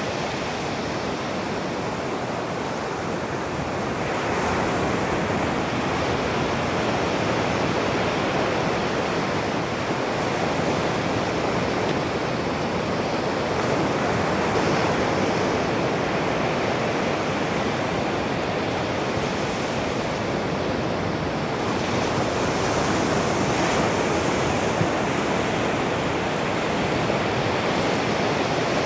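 Ocean surf breaking on the shore: a steady rushing wash that swells a little about four seconds in and again around twenty-two seconds in.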